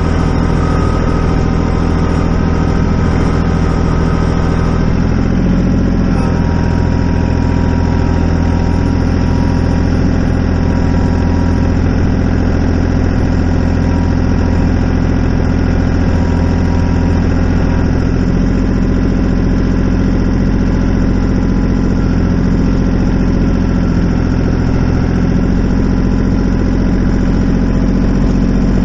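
An engine idling steadily, its tone shifting slightly about five seconds in and again about eighteen seconds in.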